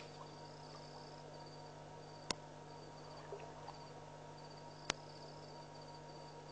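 Crickets chirping in short, high-pitched pulsed trills over a steady low hum. A sharp click cuts through twice, about two and a half seconds apart.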